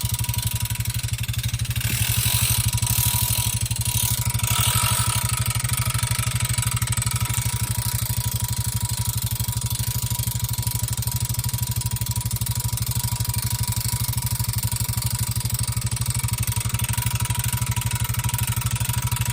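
Honda ATV engine idling steadily while a drill spins the log hitch's winch, giving a steady whine over the engine as the cable draws the log up onto the hitch.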